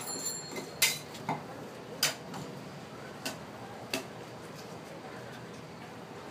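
Steel spatulas clacking and scraping on the steel cold plate of a rolled ice cream pan as the ice cream is spread thin: five sharp metal clacks in the first four seconds, the loudest about a second and two seconds in.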